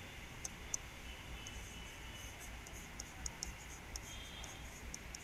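A stylus tapping and clicking against the glass of an interactive touchscreen board while a pen colour is picked and words are written: a dozen or so faint, irregularly spaced light ticks.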